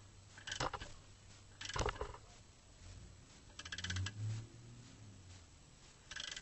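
Metal hand tools clinking on the clutch pressure plate bolts, with a quick run of ratchet-wrench clicks a little past halfway.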